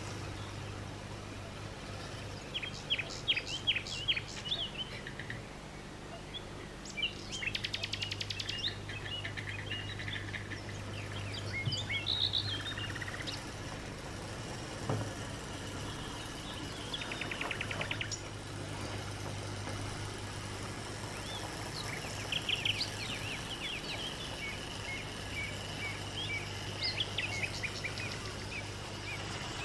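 Birds chirping and singing, with short calls scattered throughout and two fast trills, one about eight seconds in and one about seventeen seconds in, over a steady low hum.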